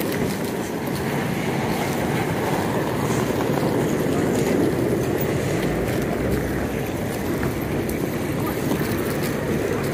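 Wheels of rolling suitcases rumbling steadily over rough asphalt as they are pulled along.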